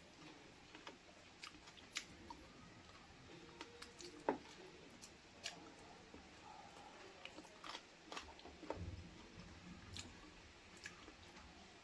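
A person chewing and biting chicken feet and gizzards: faint, scattered wet clicks and crunches, with one sharper crack about four seconds in.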